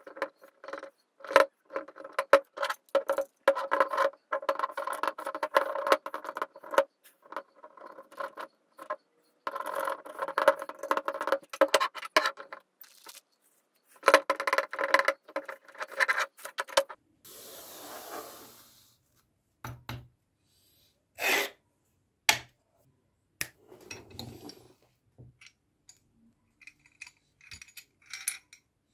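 Thread seal tape being stretched and wrapped around the faucet's threaded fittings, a squeaky crackle in quick runs. Later a short hiss, then scattered clinks and taps as the metal faucet parts are handled.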